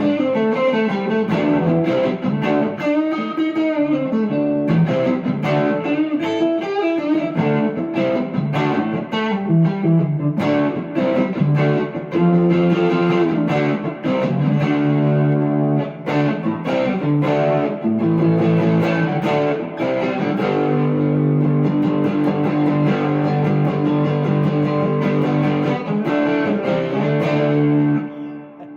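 Electric guitar played through a JHS NotaDumble Dumble-style overdrive pedal during its sound test: picked single notes and lines, then held, ringing chords that fade out near the end.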